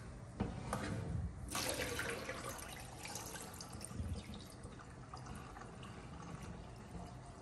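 Cloudy rinse water poured off a glass bowl of soaked grain into a stainless steel sink, splashing and trickling, louder about a second and a half in and then a fainter steady trickle.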